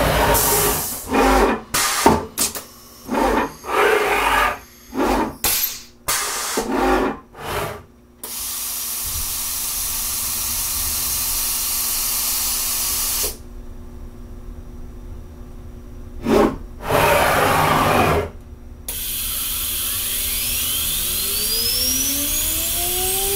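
CNC router at a tool change: a string of short, loud hissing air blasts, then a steady hiss. In the last few seconds the spindle's whine rises in pitch as it spins back up to speed.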